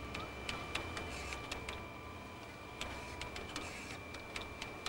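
Fingerprint-card processing machine and its button console running: a steady high whine with many quick, irregularly spaced clicks from keys and buttons being pressed and the card feed working.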